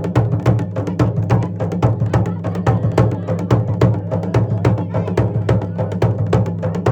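Dhol and damau, the Garhwali folk drums, played together in a fast, steady rhythm of several strikes a second.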